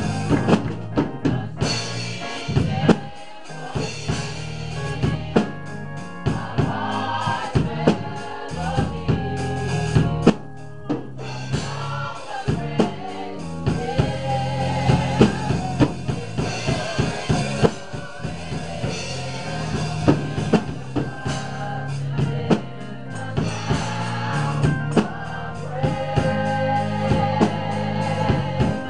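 Gospel choir singing to a live band, with a drum kit beating steadily under the voices.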